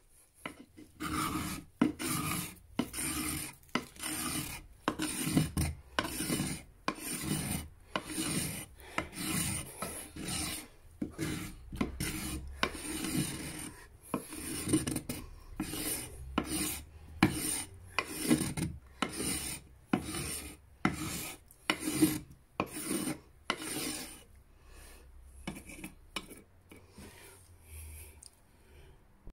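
The square spine of a Mora Garberg knife scraping along a wooden axe handle, shaving it down, in a steady run of strokes about one a second. The last few strokes are fainter.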